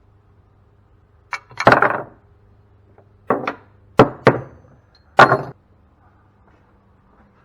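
Six irregular sharp metal knocks and clanks from a cast-aluminum pump being worked apart with hand tools, each with a short ring, the loudest about four and five seconds in.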